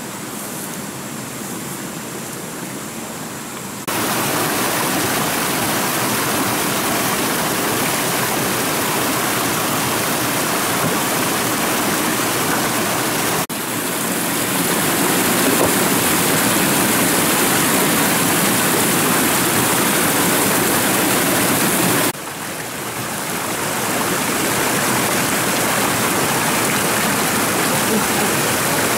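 Rushing water of a rocky stream and small waterfall, a steady noise. It is quieter for the first four seconds, then louder, with abrupt jumps in level about 4, 13 and 22 seconds in.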